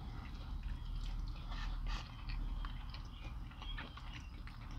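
Close-miked chewing and small wet mouth clicks of people eating, over a faint steady low hum.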